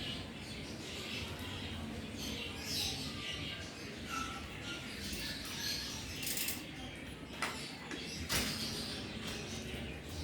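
A pet crunching dry kibble, short crunches coming every half second or so, with two sharp clicks a second apart near the end.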